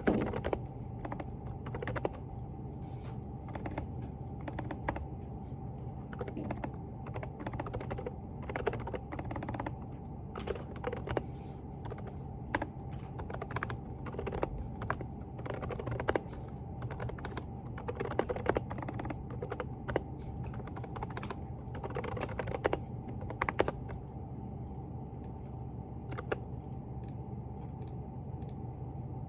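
Typing on a Groovestone GV10 mechanical keyboard with hand-lubricated silent Coral switches (38 g): irregular runs of key clicks with short pauses, fewer near the end, over a steady low hum.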